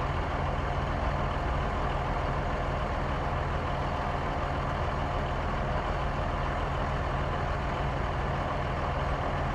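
Van engine running steadily at one constant pitch, with no revving.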